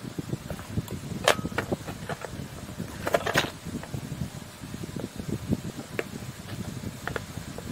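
Close handling noise from a tiny RC car's circuit board being held and turned in the fingers: a low rustling rumble with a few sharp clicks, the loudest about a second in and around three seconds in.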